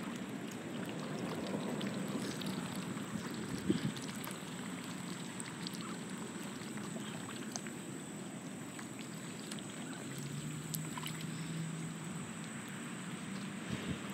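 Mallard ducks dabbling and paddling in shallow water, a steady wet splashing and pattering scattered with small clicks.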